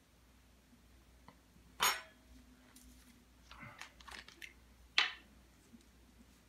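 Tableware and a plastic salad-dressing bottle handled on a table: a sharp clink about two seconds in, a few small clicks and rustles, then a second sharp clink about five seconds in.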